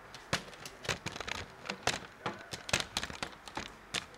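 A quick, irregular run of sharp clicks and light taps, about a dozen in four seconds, from a laptop being handled.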